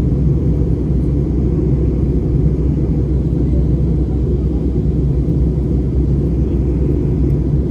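Steady low rumble of an Airbus A320 airliner, unchanging throughout.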